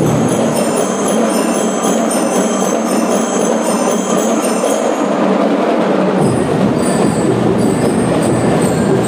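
School drum and lyre corps playing loud and steadily: massed drums under the ringing metal notes of bell lyres. The deepest bass drops away about a second in and comes back about six seconds in.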